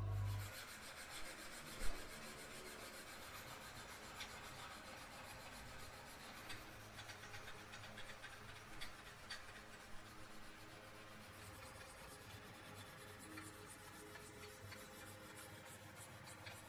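Sharpening stone on a rod-guided knife sharpener rubbing back and forth along a steel blade's edge in many light, even strokes.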